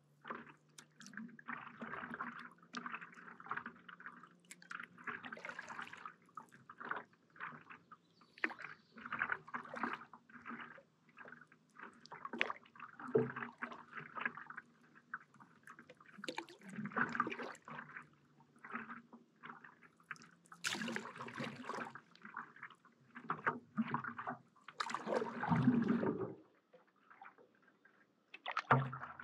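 Stand-up paddle blade dipping into and pulling through calm lake water, with splashing and dripping at an uneven rhythm of a stroke every second or two. One louder splash comes near the end.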